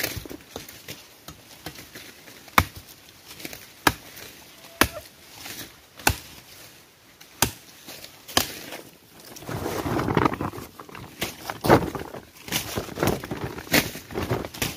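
Machete chopping a woody plant stem into short pieces: sharp single blows about a second apart, with a stretch of rustling handling about ten seconds in.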